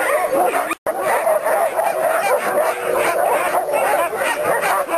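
A pack of sled dogs yipping, barking and whining together in a dense, continuous chorus. The sound cuts out completely for a split second just under a second in.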